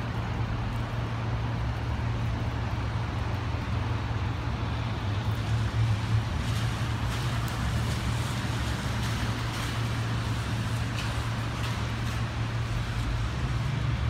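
Steady rain falling on wet pavement and puddles, over a constant low hum of city traffic.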